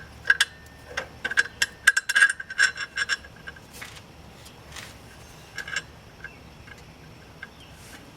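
Metal clinking and rattling: a steel rod, a cut-off half-inch bolt, knocking against the inside of a clutch's hollow steel bore as it is pushed in. There is a quick cluster of ringing clicks in the first three seconds, then a few single clinks.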